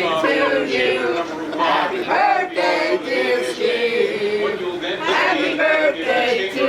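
Many people's voices at once, a crowd talking and calling out over one another.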